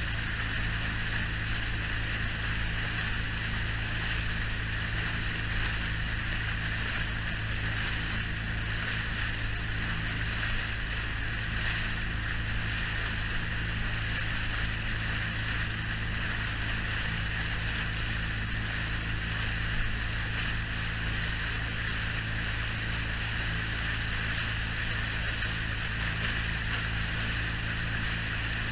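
Inflatable tender boat under way at speed: its motor running steadily under a constant rush and hiss of spray and water along the hull.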